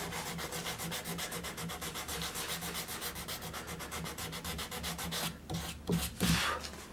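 Hand sanding of carved wood with a strip of 150-grit cloth-backed sandpaper pressed under the fingertips: quick, even back-and-forth rubbing strokes, several a second, that stop a little after five seconds in. A couple of louder scuffs follow near the end. This is the finish sanding that smooths the carving before its final coating.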